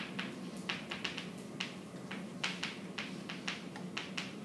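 Chalk writing on a chalkboard: an irregular run of short taps and strokes, several a second, as words are written out.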